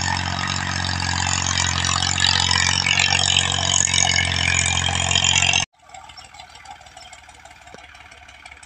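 Diesel tractor engine running steadily, with a low, even beat. About five and a half seconds in, the loud engine sound cuts off suddenly, leaving a much fainter engine hum.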